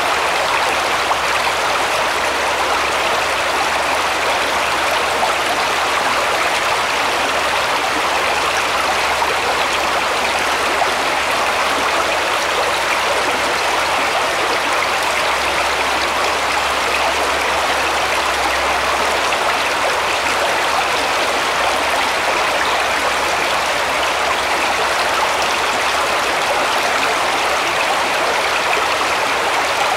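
Small, shallow stream flowing over stones: a steady, even rush of running water.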